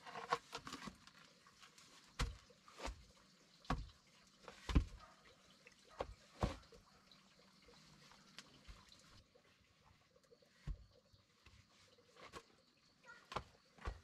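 Heavy wooden knocks and thuds from a hollowed-out, fire-charred log being tipped and turned over on packed dirt. The knocks come irregularly, a second or so apart, louder in the first half and sparser later.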